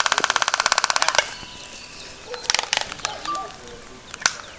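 Laysan albatross bill-clacking: a fast, even rattle of sharp bill snaps that stops about a second in. After it come a few single snaps and faint short calls.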